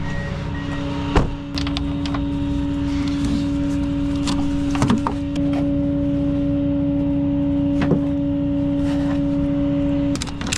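A vehicle engine running with a steady hum and a low whine, cutting off suddenly near the end, with a few sharp knocks and clicks of a wheel strap being fitted.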